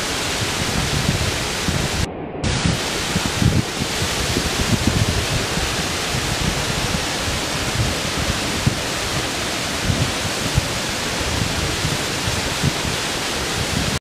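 Small waterfall of a mountain stream rushing over boulders: a steady wash of white-water noise, with a brief drop in the high hiss about two seconds in.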